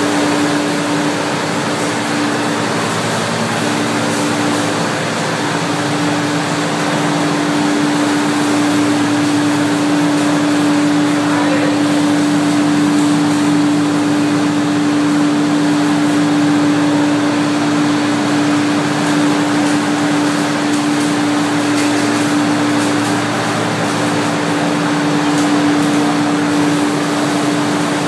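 Olive mill processing machinery running with a loud, steady hum.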